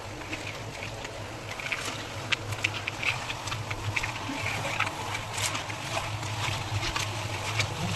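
A motor running with a steady low hum, with scattered light clicks and taps over it.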